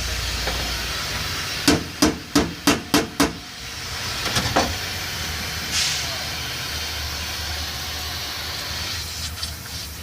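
Hammer striking sheet metal: six quick, sharp blows at about three a second, then two or three lighter strikes, over a steady background noise.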